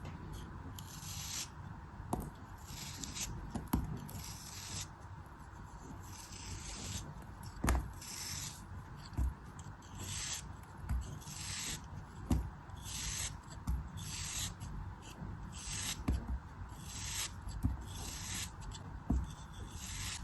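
A tool scraping through a soft, crumbly craft material in short repeated strokes, about one a second, with a few sharp taps between them.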